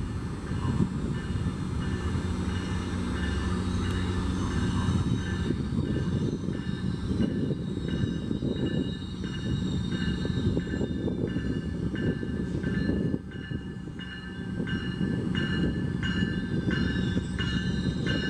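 Metrolink commuter train with a diesel locomotive approaching: a low rumble, with a ringing that repeats about twice a second and grows more distinct toward the end.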